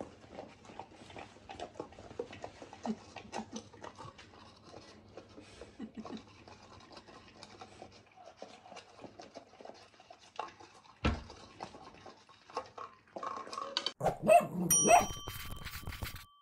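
A Newfoundland licking and lapping at a small pup cup, with soft wet smacking, scattered clicks and a sharp knock of the cup on the floor about eleven seconds in. Near the end, a short end-card jingle with a bright ding.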